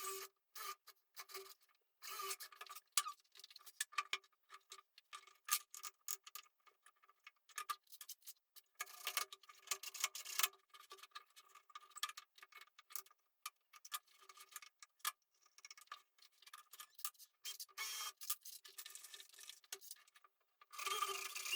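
Irregular clicking and short scraping strokes of hand work on wood and small parts, with louder stretches of rubbing about nine to ten seconds in and near the end.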